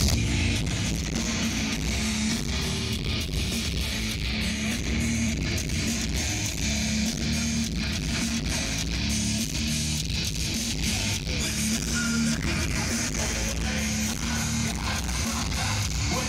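Music led by strummed guitars.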